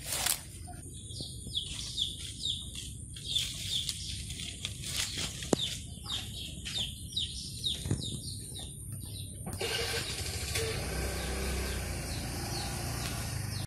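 A small bird chirping over and over in short, falling notes, a few a second, with a couple of sharp clicks among them. Near the end the chirps stop and a steady rustling hiss takes over.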